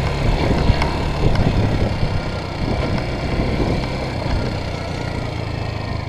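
Motorcycle engine running at a steady speed while the bike is ridden, a steady engine note over a rough low rumble.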